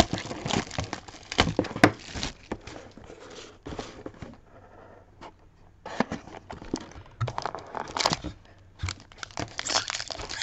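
Hands tearing open a sealed Topps High Tek baseball card box and handling its cardboard and wrapping: irregular tearing, crinkling and light knocks, with a quieter stretch of about two seconds midway.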